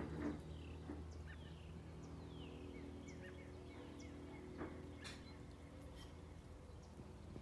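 Faint songbirds chirping, with many short falling notes scattered throughout, over a steady low hum.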